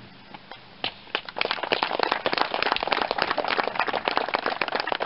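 A small crowd clapping. It starts with a few scattered claps and builds about a second in to dense, steady applause.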